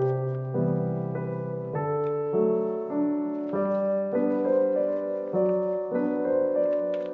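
Background piano music: a calm melody with a new note or chord about every half second.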